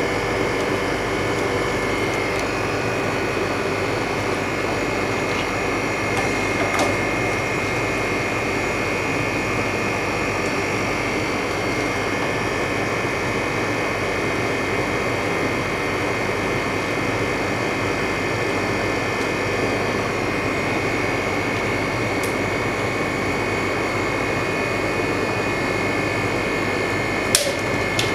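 LCD freezer machine running with a steady hum and a constant high whine as it keeps its cooling plate deeply chilled; a sharp click about a second before the end.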